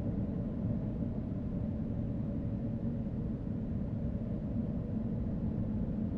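Car driving at a steady pace: a continuous engine and road rumble with a faint steady engine hum and no revving.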